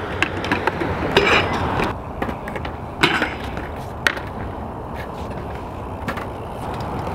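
BMX bike rolling on skatepark concrete, tyres on rough concrete, with a few sharp knocks and clacks of the bike landing and hitting obstacles, the clearest about three and four seconds in.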